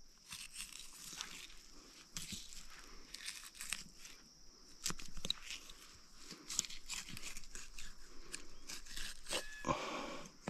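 Knife work on a chital deer carcass as the second backstrap is cut and pulled away from the spine: irregular soft clicks, scrapes and tearing of meat and sinew.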